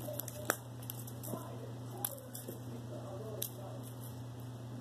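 A cat pouncing and swatting at a wand toy's fluffy lure, with a few sharp clicks and taps over a steady low hum; the loudest click comes about half a second in.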